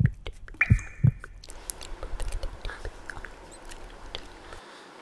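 A few dull thumps in the first second and a half, then soft rustling and scattered small clicks from a duvet being moved.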